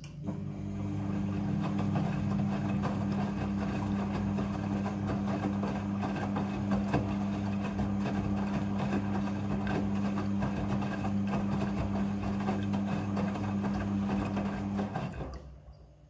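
Midea front-loading washing machine in its rinse cycle: the drum motor hums steadily while the clothes tumble and slosh in the rinse water. The motor stops near the end.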